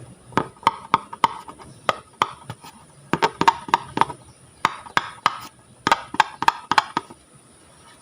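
Slime being worked by hand, giving a run of sharp clicking pops in clusters that stop about a second before the end.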